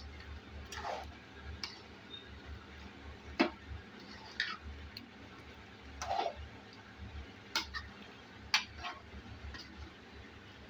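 A spoon scraping and knocking in a pan while thick chicken gravy is stirred. Irregular clicks and short scrapes, the sharpest about three and a half seconds in.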